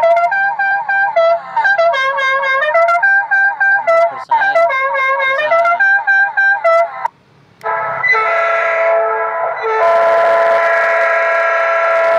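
Electronic horn module sounding through a horn speaker. For about seven seconds it toots out a melody of stepped notes. After a brief pause it switches to a loud, steady train-horn chord, held with one short break.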